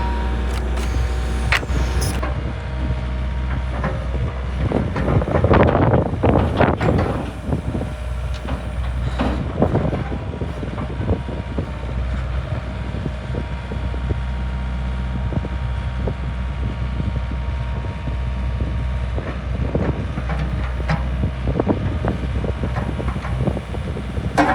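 Yanmar B55W-2 wheeled excavator's diesel engine running steadily, with louder surges and knocks at times, about five, nine and twenty seconds in.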